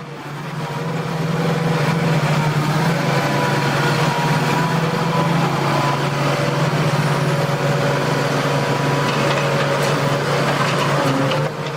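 Engine of a heavy machine running steadily under load: a constant low hum with steady higher tones over a haze of noise, swelling during the first second and easing off near the end.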